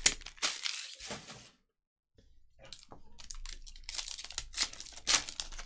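Foil wrapper of a Panini Prizm basketball retail card pack being crinkled and torn open by hand: a run of sharp crackles, loudest about five seconds in, with a brief dead gap about two seconds in.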